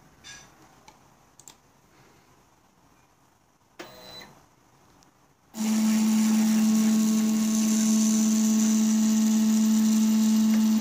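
Stepper motors of a home-built CNC gantry moving the pen carriage at constant speed. A loud, steady single-pitched hum with overtones starts suddenly about five and a half seconds in, after a quiet stretch with a few faint clicks.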